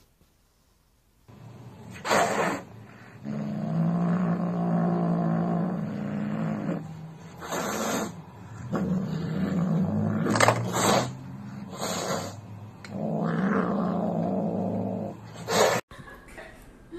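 A kitten growling in long, low, drawn-out growls with short hisses between them. It sounds when a hand reaches for its paws.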